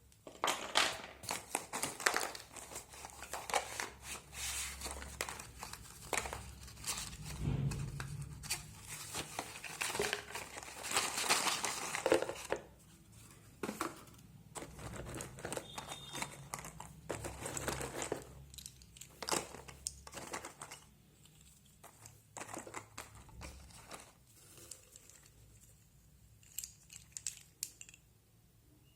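Packaging of a box of slate pencils being crinkled and torn open by hand: dense crackling and rustling with sharp clicks, thinning out to occasional crinkles near the end.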